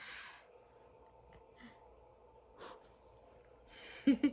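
Breaths or puffs of air close to a phone microphone: a sharp, hissy one at the start, a few faint ones after, then another hiss and two short, loud vocal sounds near the end.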